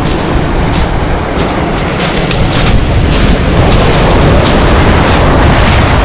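Sea waves breaking on a pebble beach: a loud, continuous rumble of surf with the hiss of foam. It grows a little louder about halfway through.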